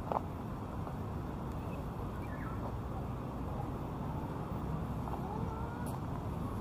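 Steady city ambience: a continuous low hum of road traffic, with a brief sharp click just after the start.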